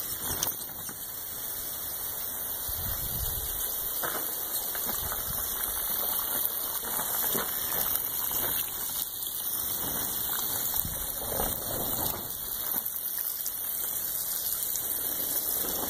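Water jetting from small holes in clear plastic watering tubing and splashing onto soil and into little puddles at the base of each plant, a steady splashing.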